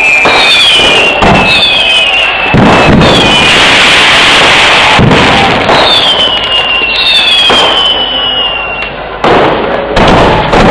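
Fireworks display: a string of whistling shells, each whistle falling in pitch, overlapping with sharp bangs every second or two. There is a hissing rush around four seconds in, and two bangs close together near the end.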